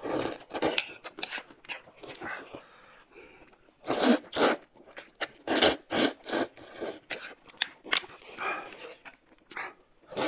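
Wide mianpi noodles being slurped and chewed, in several clusters of loud, sharp slurps with quieter stretches between.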